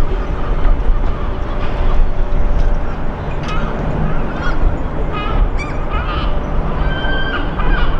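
Several short bird calls over a steady low rumble of outdoor background noise.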